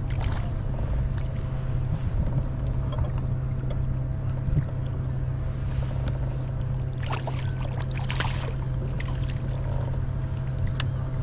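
Water splashing around a kayak a few times, about seven and eight seconds in, over a steady low hum.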